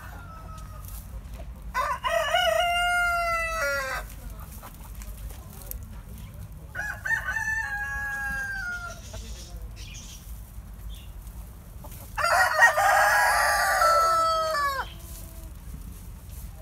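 Domestic roosters crowing: three long crows about two to three seconds each, each falling away at the end, the last one the loudest.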